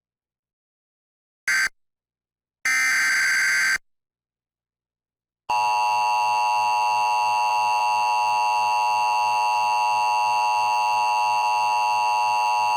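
Emergency Alert System header and attention signal. A short blip and then about a second of harsh digital data screech come around 1.5 and 3 seconds in. From about 5.5 seconds a loud, steady two-tone alert tone sounds, marking the start of a new severe thunderstorm warning.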